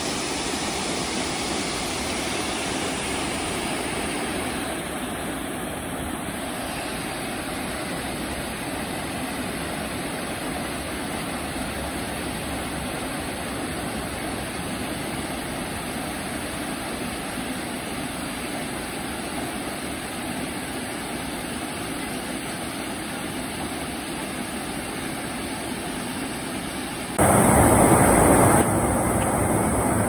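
Narada Falls, a tall waterfall, rushing steadily. Near the end it cuts abruptly to a louder, brighter rush of water from Ruby Falls, a cascade tumbling into a pool.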